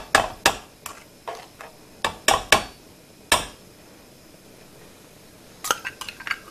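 Metal spoon clinking against a nonstick wok while stirring sugar syrup in it: about ten sharp clinks in the first three and a half seconds. After a pause, a quick cluster of metal clinks near the end.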